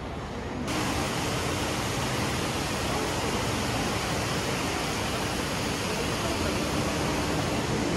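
Steady rush of running water, cutting in abruptly about a second in.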